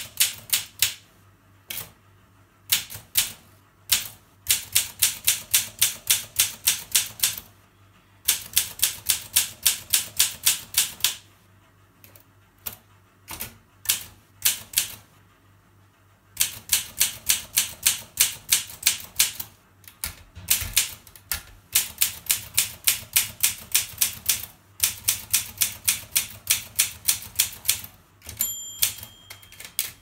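Olympia SM5 manual portable typewriter being typed on: runs of sharp key strikes at about four a second, broken by short pauses. Near the end there is a single ring, the margin bell marking the end of the line.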